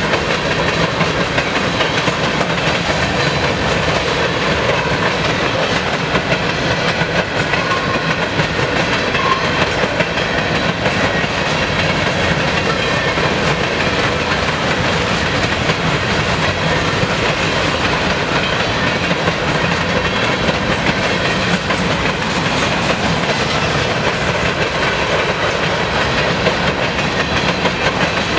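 Covered hopper cars of a long freight train rolling past at trackside, a steady, loud and unbroken noise of steel wheels on the rails.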